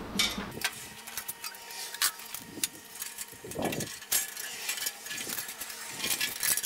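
Steel bandsaw blade being taken off the saw by hand: a string of light metallic clicks, clinks and rattles.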